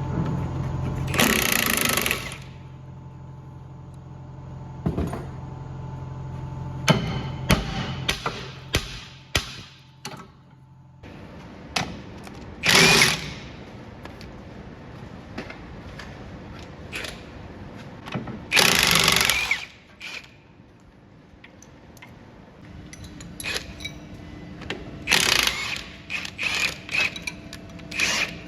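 A power tool run in four short bursts of about a second each, with tools clinking and knocking on metal in between.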